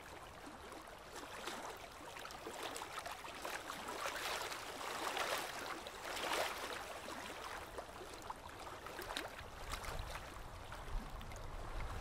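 Small waves lapping and sloshing right beside the microphone at the water's surface, swelling and fading unevenly, louder about five to six seconds in.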